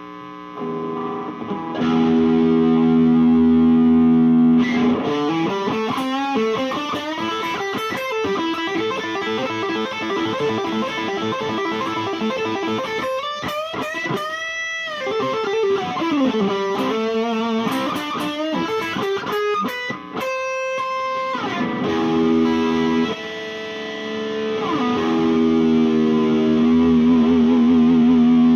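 IYV ILP 400 electric guitar playing a solo: held chords and fast runs of notes, with several swooping pitch dives and rises in the middle and a wavering vibrato near the end.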